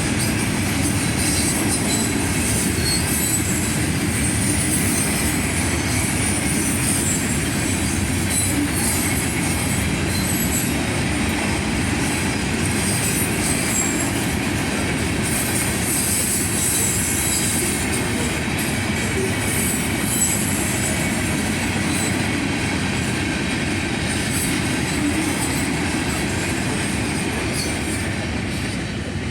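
Loaded rock cars of a freight train rolling past at speed: steady wheel-on-rail rumble and clatter with a high wheel squeal over it, falling away near the end as the train's tail goes by.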